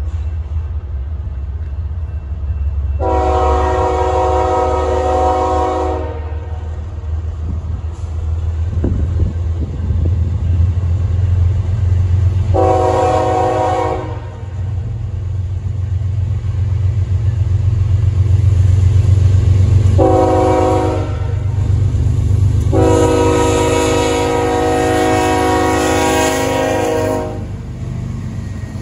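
Union Pacific diesel locomotive air horn sounding a chord of several notes four times as the train approaches: a long blast, two shorter ones and a final long one. Beneath the horn is the steady low rumble of the locomotives' diesel engines, growing as they near.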